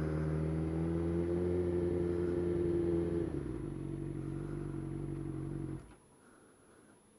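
Suzuki GSX-R600 inline-four motorcycle engine running steadily at low revs; its note drops about three seconds in, and the engine cuts off suddenly near the end as it is switched off.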